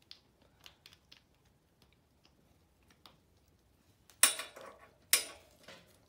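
Spark plug being fitted into an ATV ignition coil's plug cap amid handled wiring: light scattered clicks, then two louder sharp scraping knocks about a second apart near the end.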